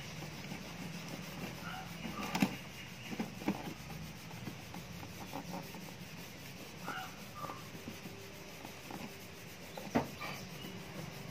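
A cloth rubbing toothpaste into scratched car bumper paint, quiet, with a few short sharp clicks, the loudest about two and a half seconds in and again near the end. Birds call faintly now and then in the background.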